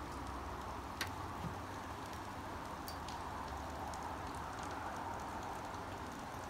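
Steady rain falling, an even hiss with a low rumble under it, with a few sharp drip ticks, the loudest about a second in.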